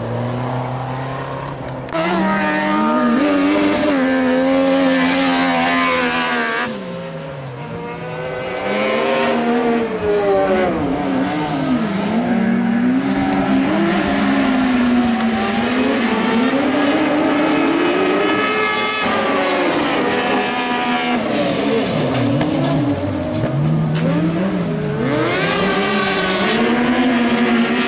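Off-road racing cars' engines revving hard on a dirt track, the pitch climbing and dropping again and again through gear changes and lifts off the throttle, with the tyres sliding on the loose surface.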